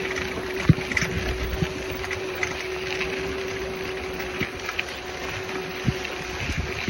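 Bike ride noise: a steady whine with wind rushing over the microphone, and a few sharp knocks from bumps along the way.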